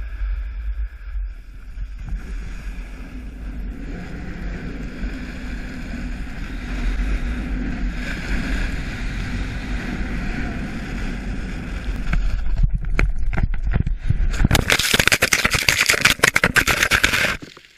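Wind rushing over a helmet-mounted action camera and a snowboard sliding over groomed snow at speed. From about two-thirds of the way through come knocks and thuds of a crash, then a loud, rough rushing and scraping as the camera tumbles through the snow after flying off the helmet. The sound cuts off abruptly at the very end.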